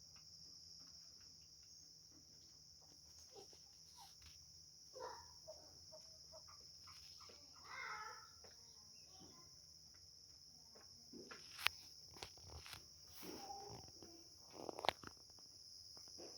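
Faint, steady high-pitched chirring of insects such as crickets. A few short animal calls come about five and eight seconds in, and sharp clicks about twelve and fifteen seconds in are the loudest sounds.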